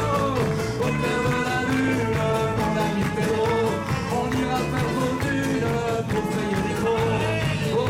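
Live band music with a steady beat and a melody, with a man's voice singing at the microphone.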